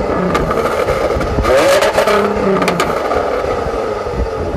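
Jaguar F-Type's supercharged V6 revved with the car standing still, heard at its twin centre exhaust. The revs climb sharply about a second and a half in and then fall away, with sharp cracks and pops from the exhaust along the way.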